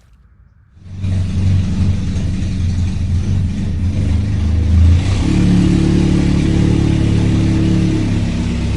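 A motor vehicle engine sound starts about a second in and runs steadily. It revs up to a higher pitch about five seconds in, then drops back near the end.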